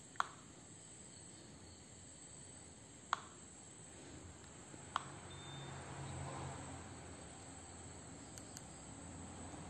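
Three sharp clicks, about three and two seconds apart, from a Canon 600EX II-RT speedlite as its buttons are pressed to change settings.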